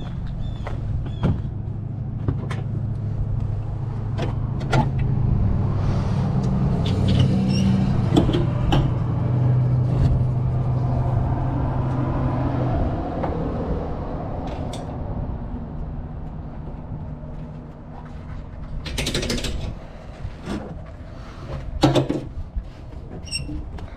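Trabant 601S's air-cooled two-stroke, two-cylinder 594cc engine running with a steady low drone that fades about halfway through, with scattered clicks and knocks.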